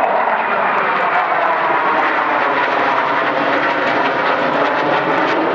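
Jet engines of a formation of fighter jets, a CF-18 Hornet and two F-16s, passing overhead: a steady, loud jet roar with a slowly sweeping, swirling rush.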